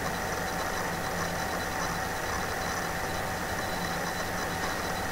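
Steady background hum and hiss from the recording setup, with a few constant tones and no other events.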